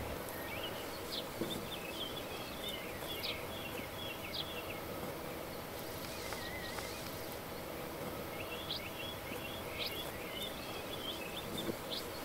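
Steady outdoor background hiss with a small songbird twittering in two runs of quick high chirps, one in the first few seconds and another near the end.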